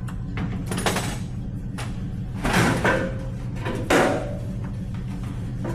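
Background music with a steady low bass line, over several sharp knocks and clanks of tools and parts, the loudest about four seconds in.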